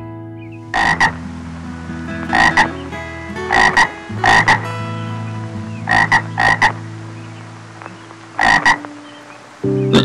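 A frog croaking in short calls, many of them doubled, about seven times, one every second or two, over soft sustained background music.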